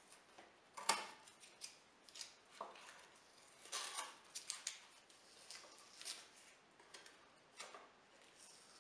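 A wooden offcut and a small metal blade are handled against a plywood jig, giving scattered short taps, clicks and scrapes. The loudest comes about a second in, with a cluster of them around the middle.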